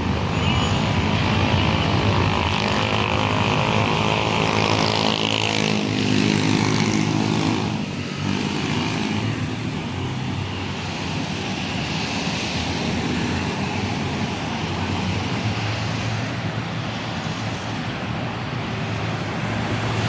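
Street traffic noise, with a droning engine that passes during the first eight seconds or so and then fades under the steady traffic.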